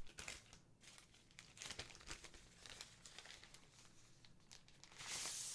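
Packaging being unwrapped from a keyboard: faint crinkling and rustling with a few light clicks, then a louder rustle near the end.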